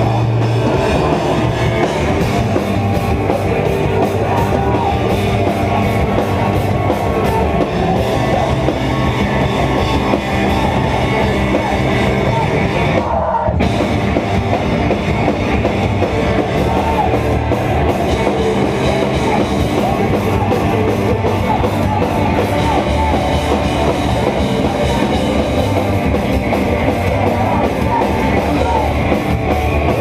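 Hardcore punk band playing live and loud: distorted electric guitars, bass and a pounding drum kit under shouted vocals, with a brief break in the guitars and cymbals about halfway through.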